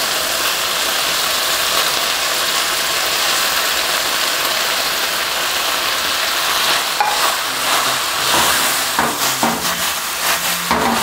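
Beef and chopped bell peppers sizzling steadily in a hot stainless steel skillet over high heat. In the second half, the spatula scrapes and knocks against the pan as the stir-fry is stirred and tossed.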